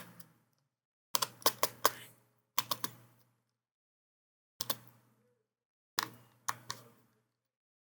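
Short, sharp clicks and taps of a precision screwdriver working the small screws of a laptop daughter board, heard in clusters: a quick run of four or five clicks about a second in, a few more near three seconds, and single taps and pairs later on.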